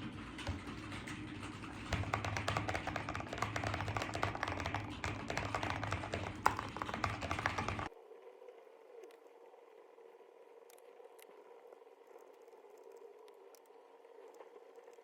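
Fast typing on a mechanical keyboard: a dense run of key clicks that gets louder about two seconds in and cuts off suddenly at about eight seconds. A quieter steady hum with a few faint taps follows.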